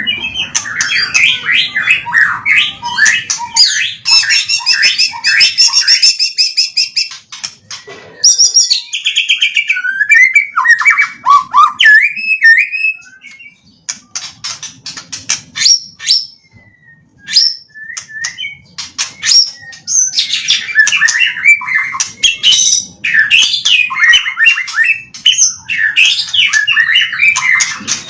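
White-rumped shama (murai batu) singing loudly: a long, varied string of whistles, fast trills and chattering phrases, including songs learned from master birds. There is a brief lull about halfway through.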